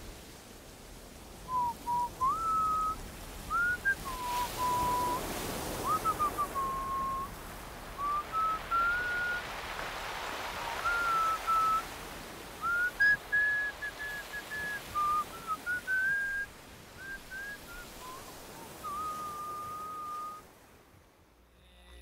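A person whistling a slow melody in clear single notes, held and stepping up and down, over a steady rushing noise that swells a couple of times. The whistling stops near the end.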